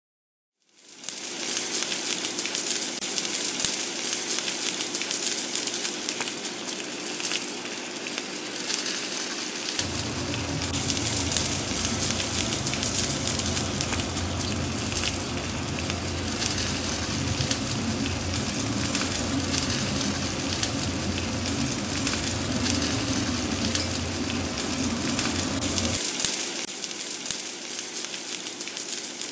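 Marinated galbi sizzling on an electric grill: a dense, steady sizzle full of sharp crackles and pops, with a low hum under it through much of the middle. In the last few seconds, an egg frying in oil in a cast-iron pan.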